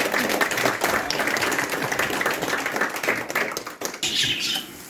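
Audience applauding, the clapping dying away about four seconds in, with budgerigars chirping near the end.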